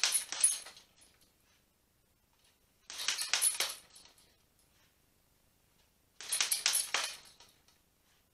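Boxing gloves striking a hanging heavy bag in quick four-punch combinations (uppercut, uppercut, hook, cross): three flurries of sharp slapping hits, about three seconds apart.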